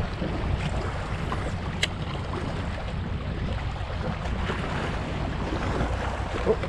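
Wind buffeting the microphone over water lapping around a kayak, with a sharp click about two seconds in and a smaller one near the end.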